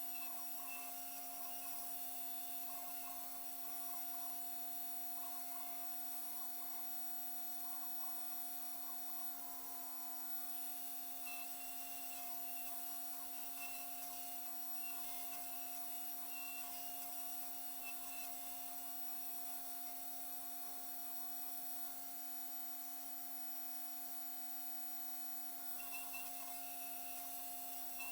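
Custom-built 5-axis CNC machine machining a two-stroke cylinder sleeve: a steady hum with a higher, warbling whine that comes and goes as the axes move.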